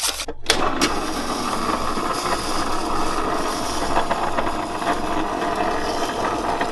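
Electric freezer-bowl ice cream maker running with a steady motor hum, starting with a couple of clicks about half a second in.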